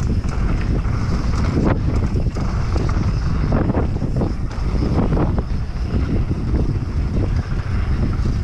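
Wind buffeting the microphone over the rumble of a Specialized Demo downhill mountain bike riding a rough trail, with frequent knocks and rattles from the bike.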